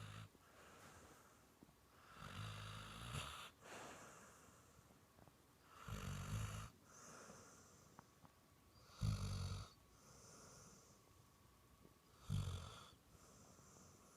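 Dog snoring in deep sleep, sounding much like a person's snore: five low snores about every three seconds, with a softer breathy sound between each.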